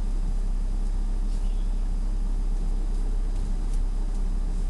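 Scania R500's V8 diesel engine running steadily, heard from inside the truck's cab as an even, low rumble.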